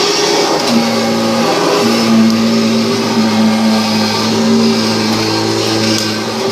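Kirby G5 upright vacuum cleaner running steadily, picking up crumbs from carpet; its motor hum shifts in pitch slightly now and then.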